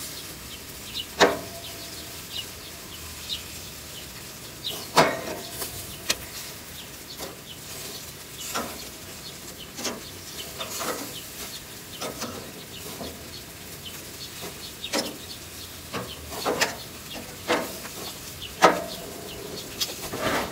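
Hot dogs sizzling on a gas grill, with about a dozen sharp metal clinks and clacks scattered through, some briefly ringing, as tongs turn the hot dogs on the grate.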